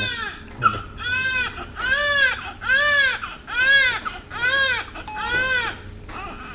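Newborn baby crying: a long wail trails off, then a run of about seven short cries in quick succession, each rising and falling in pitch. A brief pause near the end comes before the crying starts up again.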